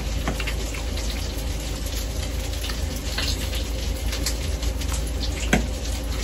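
A steady hiss over a low hum, with scattered light clicks and taps of forks on a plate as spaghetti is eaten.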